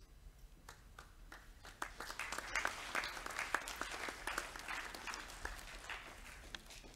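Audience applause from a seated assembly: a few claps at first, building to steady clapping a couple of seconds in, then thinning out near the end.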